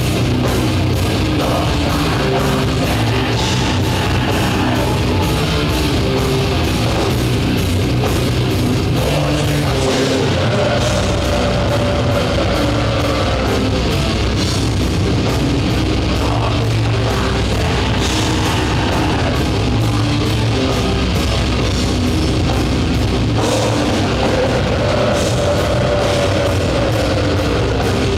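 Black metal band playing live at full volume: distorted electric guitar, bass guitar and drum kit, with rapid, dense drumming.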